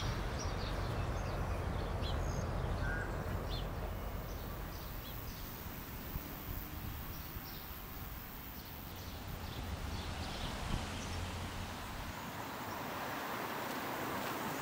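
Outdoor nature ambience: scattered short bird chirps over a steady low background rumble and hiss.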